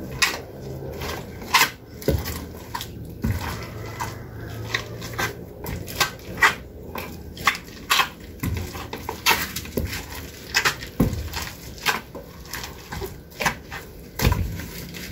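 Irregular knocks, clinks and scrapes of a spoon and wooden pestle working sticky nilupak mash in a wooden mortar, about one or two sharp knocks a second with a few duller thuds.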